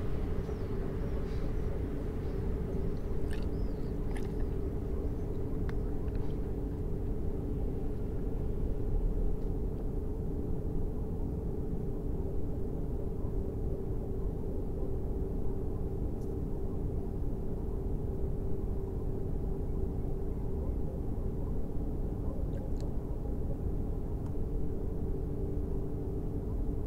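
A steady low rumbling hum with several held tones, and a few faint clicks in the first few seconds.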